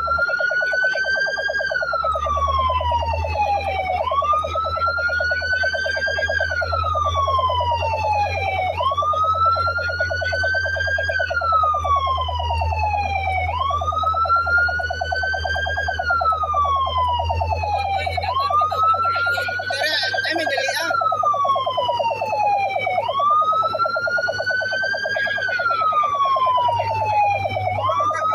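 Fire truck siren wailing: each cycle rises quickly and then falls slowly, repeating about every five seconds. Under it run a steady buzzing tone and a low engine rumble, with a short burst of noise about twenty seconds in.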